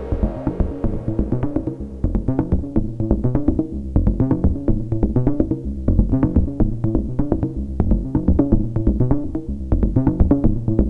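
Eurorack modular synthesizer playing a fast sequence of short, pitched, bongo-like percussive hits, pinged through a Klangbau Köln Twin Peak filter and a Make Noise Optomix low-pass gate, over low stepping bass notes. The hits dull briefly twice, about four and nine seconds in, as the patch is tweaked.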